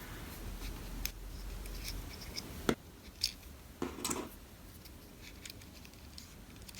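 Small plastic parts of a car's mirror control switch being handled and fitted together by hand: a few light, separate clicks and taps.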